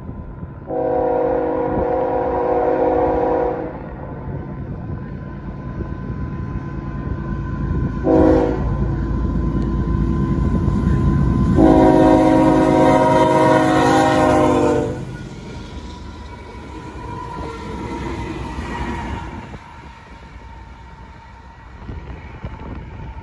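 Diesel locomotive horn on GE test locomotive GECX 2012 sounding a long blast, a short blast and another long blast as the train approaches, over a steady low rumble of engine and rails. After the horn the train rolls by with engine and wheel noise.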